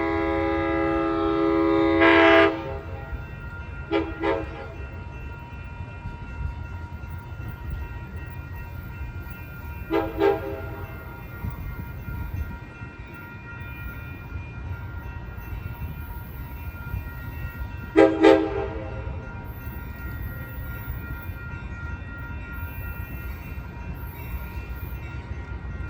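Amtrak train's air horn: one long blast, then three short blasts spread out over the following quarter minute, with the steady low rumble of the train running underneath.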